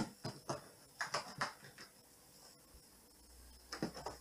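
A few short scuffs and taps of a cat's paws and claws on a cardboard slide: one pair near the start, a cluster about a second in, and another near the end.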